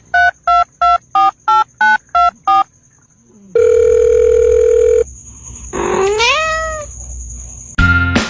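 Touch-tone telephone keypad beeps, about eight quick presses, followed by a steady phone tone for about a second and a half. A cat then gives one meow that rises in pitch, and music starts near the end.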